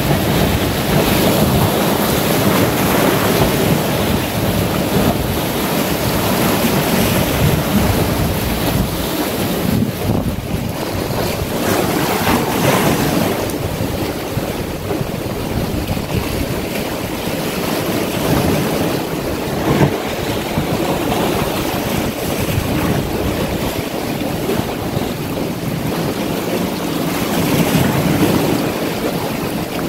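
Sea waves washing in and breaking around shoreline boulders, swelling and easing in repeated surges, with wind on the microphone.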